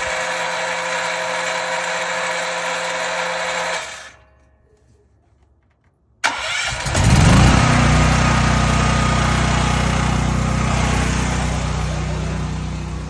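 Dual-fuel portable generator on propane: the electric starter cranks the engine for about four seconds without it catching, then stops. About six seconds in it is cranked again, and the engine fires and settles into a steady run.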